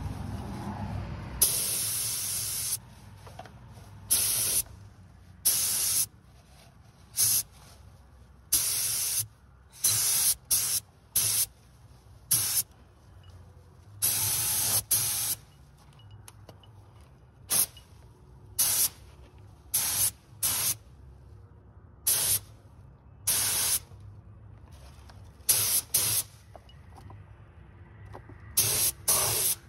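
Compressed-air gravity-feed paint spray gun hissing in about twenty short bursts as the trigger is pulled and released, each burst lasting from a fraction of a second to just over a second, the first one the longest.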